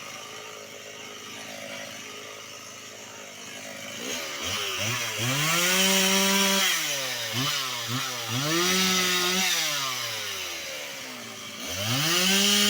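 Two-stroke chainsaw idling, then run up to full speed three times, held briefly at high pitch and dropping back to idle between, as it cuts firewood.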